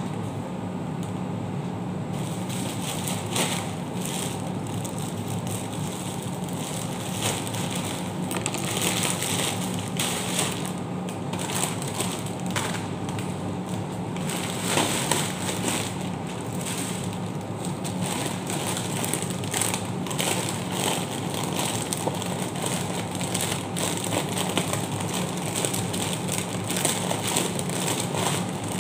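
Plastic snack packets crinkling and rustling as they are handled and stacked, in many short irregular crackles that start about two seconds in, over a steady low hum.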